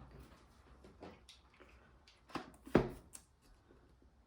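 Album boxes and packaging handled by hand: a few scattered soft knocks and clicks, the two loudest close together past the middle.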